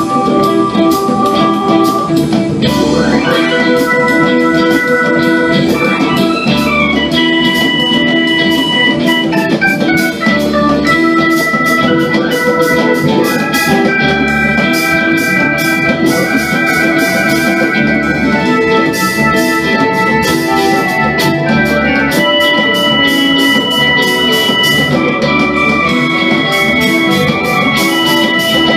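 Live rock band playing an instrumental jam: long held organ-like keyboard notes and electric guitar lines with sliding pitches over bass and drums, with cymbals keeping a steady beat.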